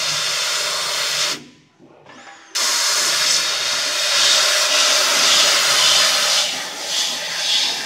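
Loud steady hiss of a 150 W CO2 laser cutter's assist-gas jet at the cutting head while it cuts sheet metal, throwing sparks. The hiss stops about a second and a half in, comes back about a second later and then surges up and down as the cut goes on.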